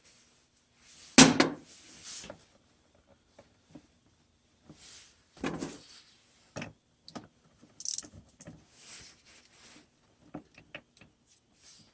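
Small metal clicks and clinks of tools and hardware as the nuts on a winch relay's wire terminal studs are loosened. There are scattered light taps, with a louder clank about a second in and others around the middle.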